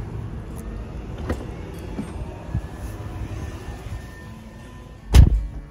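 A few light clicks and rustling as someone gets into a 2020 Tesla Model 3, then one loud thump about five seconds in as the car door is shut.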